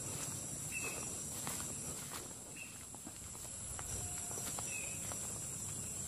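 Footsteps through grass and soft ground, over a steady high-pitched insect drone. Short chirps repeat about once a second.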